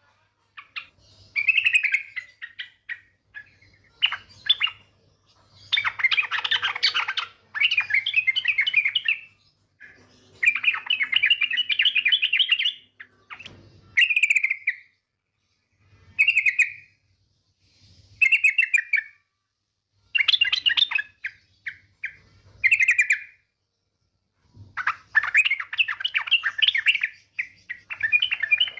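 Yellow-vented bulbul (trucukan) calling: repeated bursts of bubbling, chattering call phrases, each one to three seconds long, with short pauses between. This is a female's call used as a lure to draw males into song. A faint low hum runs underneath.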